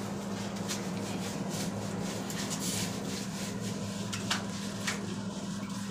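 Hand scrubbing a bar of soap through a wet cat's fur: a scratchy rubbing over a steady low hum, with two light knocks late on.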